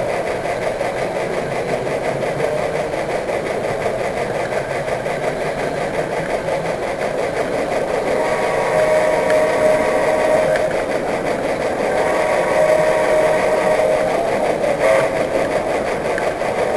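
Model train running along the track, heard from a camera riding on it: a steady mechanical running noise of motor and wheels on rails. A whining tone comes in about halfway through and grows louder.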